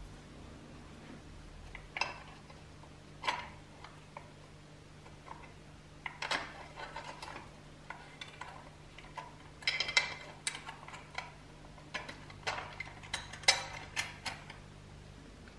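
Irregular clicks, taps and light metallic knocks as the pressed-steel push arms and blade of a toy bulldozer are handled and fitted into place, some in quick clusters.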